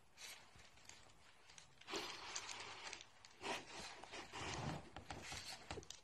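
Faint rustling and crinkling of paper and woven seagrass as a parrot tears at a paper-wrapped foraging toy, in short irregular bursts.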